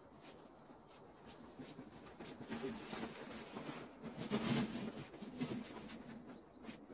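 A plastic sled-type snow shovel scraping and sliding over packed snow, with boots crunching. The sound is scratchy and builds to its loudest about two-thirds of the way in, then eases off.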